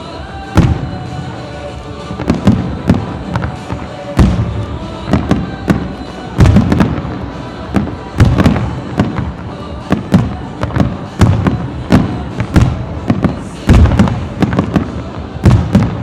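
Fireworks shells bursting in rapid succession: sharp bangs and deeper booms, often several a second and sometimes in quick clusters. Music plays underneath.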